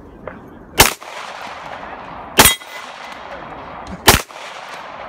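Three pistol shots at an even, unhurried pace about a second and a half apart, each followed by a fading echo.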